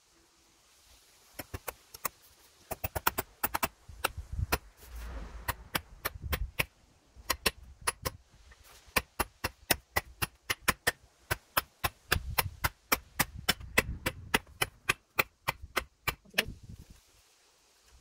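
A small hammer tapping on a Hults Bruk axe head while hanging it back on its wooden handle: rapid sharp metallic taps, several a second, in runs with short pauses, stopping a second or two before the end.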